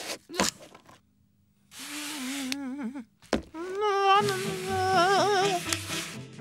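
A cartoon penguin's voice humming a wavering tune, in two phrases broken by a short knock, over a steady hiss of the sled sliding on snow. Background music with a low bass line comes in about two-thirds of the way through.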